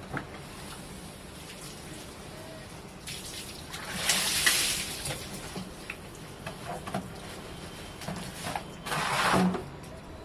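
Water poured out of a plastic bucket, splashing onto a wet floor in two gushes: a longer one about four seconds in and a shorter one near the end, with a few small knocks between them.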